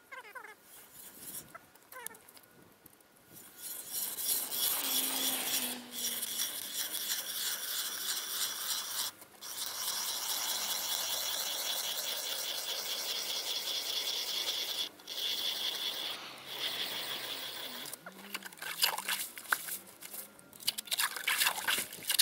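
Hand-cranked ice auger boring through ice, its blades rasping steadily against the ice in long stretches broken by a few brief pauses. Near the end the sound turns to sharper, uneven scrapes and knocks as the auger is worked back up out of the hole.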